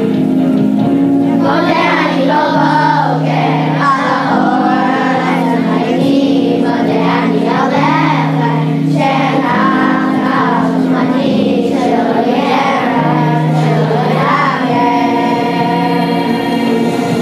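Children's choir singing over a steady instrumental accompaniment. The accompaniment plays alone for the first second or so, and again briefly near the end.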